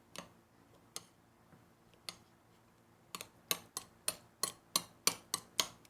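Sharp clicking taps: a few spaced about a second apart, then a quick run of about three or four a second through the second half.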